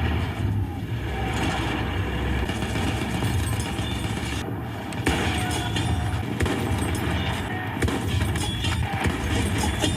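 Video game battle audio: a steady low vehicle engine rumble under game music, with scattered sharp cracks of gunfire and impacts.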